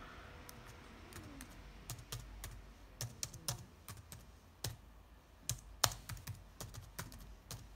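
Typing on a laptop keyboard: irregular keystroke clicks in short runs, becoming more frequent after about two seconds.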